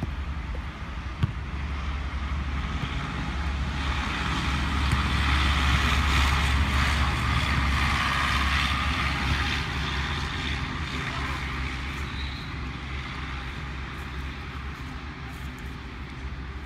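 A passing motor vehicle: its noise swells to a peak about halfway through and then slowly fades, over a steady low rumble. A single sharp knock about a second in.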